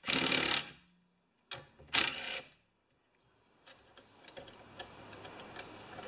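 Two short runs of quick metallic clicking, each about half a second, at the start and about two seconds in, as a wrench backs the adjusting bolt almost off an electric mower-deck PTO clutch; faint light ticks follow.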